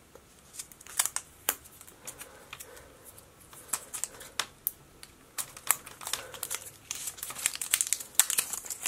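Crinkling packaging and a scatter of sharp small clicks and taps as an Apple Watch and its rubber sport band are taken out and unwrapped by hand. The clicks come more often in the second half.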